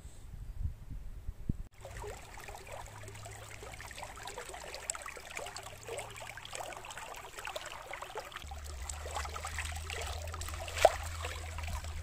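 Shallow forest stream running over stones: a steady babbling trickle full of small splashes, starting abruptly about two seconds in after a few low thumps. One sharp click stands out near the end.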